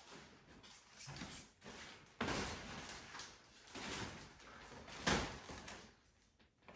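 Rustling and swishing of a stunt kite's fabric sail and frame as it is lifted and handled, in several bursts, with a thump about five seconds in as the kite is set down on the wooden floor.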